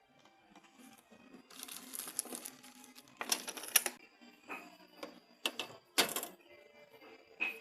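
Hand-handling sounds of parts and packaging: two short bursts of rustling, then a few sharp clicks and knocks, over faint background music.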